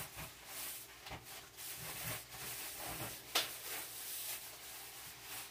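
Light kitchen handling noises: a few soft clicks and knocks, the sharpest about three and a half seconds in, over a faint steady hiss and hum.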